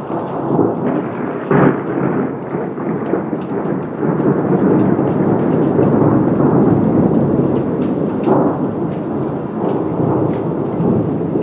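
Loud rolling thunder. It builds at once, has a sharper clap about a second and a half in, rumbles on at its loudest through the middle, and swells again around eight seconds.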